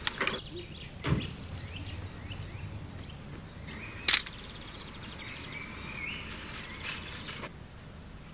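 Outdoor ambience with birds chirping, a dull thump about a second in and a sharp click about four seconds in. The ambience cuts off abruptly shortly before the end.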